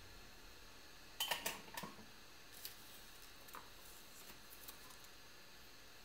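Small metal tools clicking and tapping on a phone's circuit board during hot air rework: a quick cluster of sharp clicks about a second in, then a few lighter ticks, over a faint steady hiss.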